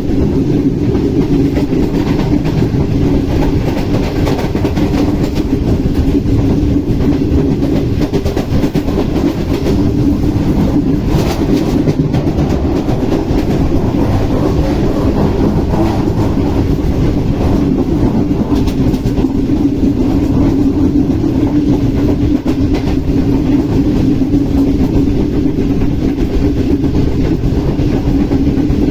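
Green Line Express passenger train running on the rails at speed: a steady, loud wheel-and-rail rumble with a clickety-clack of the wheels over rail joints.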